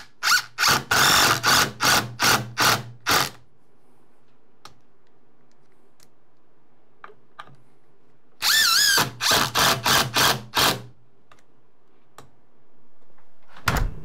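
Ryobi cordless impact driver driving long strike-plate screws through the plate into the door framing. It runs in two spells of short, rapid trigger bursts, one at the start lasting about three seconds and one in the middle lasting about two, with a quiet stretch between.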